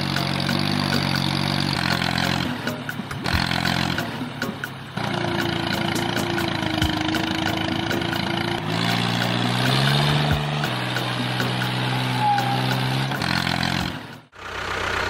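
An engine running, mostly steady like idling, with a rise in pitch about nine seconds in as it revs up. It comes in several chunks that start and stop abruptly.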